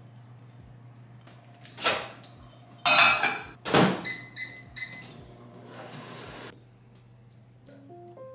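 Whirlpool over-the-range microwave: the door clunks open and is shut with a loud thud, followed by three quick keypad beeps as the time is entered.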